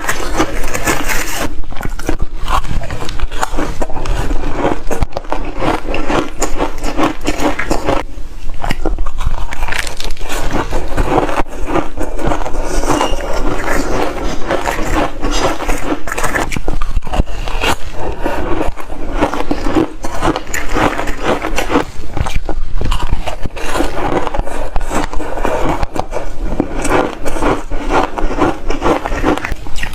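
Close-miked crunching of ice being bitten and chewed: a dense, continuous run of crisp crunches and scrapes, with short lulls between bites.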